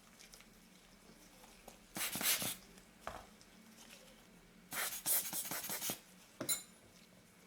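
Scratchy rubbing and scraping in short bursts, one of about half a second, a longer one of about a second and two brief ones: a small suction tool and a lens element being worked against the lens barrel while trying to lift the element out.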